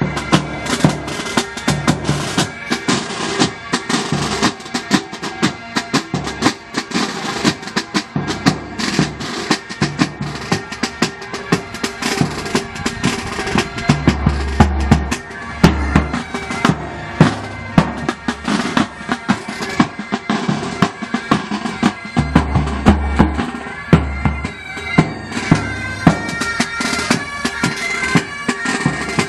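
Military pipe band playing: bagpipes sounding a melody over their steady drone, with snare and bass drums beating a dense, regular rhythm.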